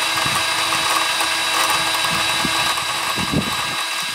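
Handheld power drill running steadily at constant speed with a whine, drilling into a broken-off bolt seized in the engine's cylinder head or block.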